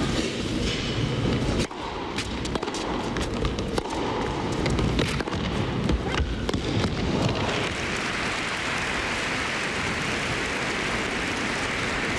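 Tennis rally on an indoor court, the ball struck back and forth by rackets, then the audience applauds the winning shot from about seven and a half seconds in.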